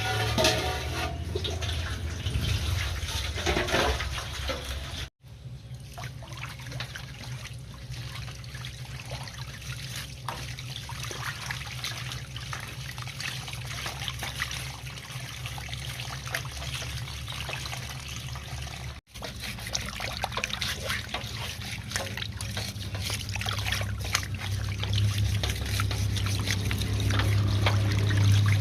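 Water running and trickling while parts are rinsed and scrubbed, with many small clicks and knocks of handling, under a steady low hum. It breaks off briefly twice.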